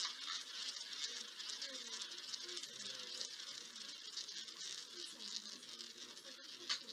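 Roulette ball spinning around the track of a roulette wheel: a steady, high whirring rush, with a sharp click near the end.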